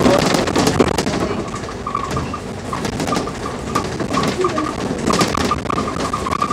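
Interior of a Scania K310UD double-decker bus under way, heard from the passenger cabin: the engine drones steadily beneath frequent small rattles and knocks from the bodywork and fittings.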